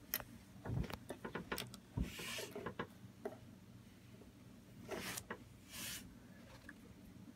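Faint clicks and taps of small plastic LEGO pieces, a minifigure and a campfire piece, being handled and set down on a wooden tabletop. The clicks cluster in the first three seconds, with a few short soft rustles of hands brushing past around two, five and six seconds in.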